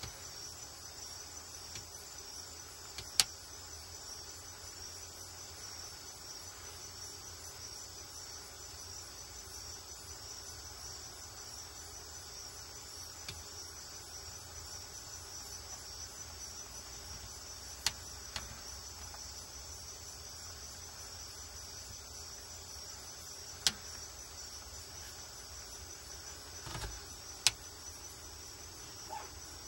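A steady high-pitched insect drone with no rhythm, broken by a few sharp clicks spread through it.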